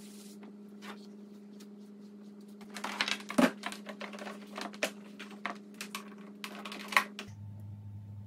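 Scattered light clicks and knocks of things being handled on a kitchen worktop, over a steady electrical hum that switches to a lower hum about seven seconds in.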